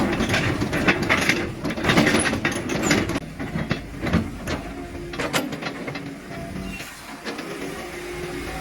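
Caterpillar 315D2GC hydraulic excavator working: the machine runs under load with many sharp metallic clanks and knocks. The knocks come thickest in the first few seconds and thin out toward the end.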